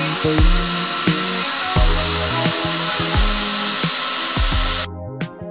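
Power drill running steadily as its bit bores through thin wooden craft sticks, with a high steady whine; it stops abruptly just before the end. Background music with a bass beat plays underneath.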